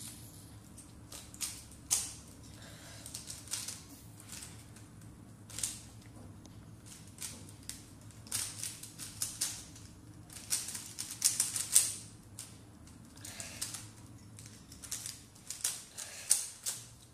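3x3 Rubik's cube being turned rapidly during a solve: bursts of quick plastic clicking as the layers snap round, with short pauses between bursts, over a faint low steady hum.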